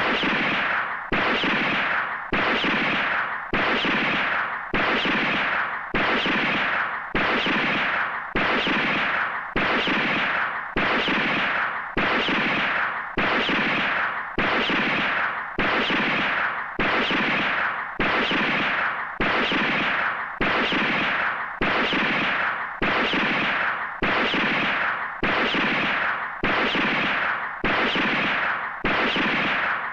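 Handgun sound effect from 1970s–80s Japanese TV police dramas, fired over and over at an even pace of a little more than one shot a second. Each shot is a sharp crack that rings out and fades before the next.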